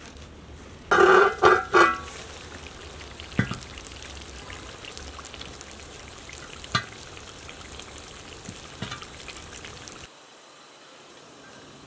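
Tomato sauce sizzling and bubbling around rolled Gul Khanum dough roses in a pan: a steady hiss with a few sharp pops. About a second in, a short loud burst of three pulses.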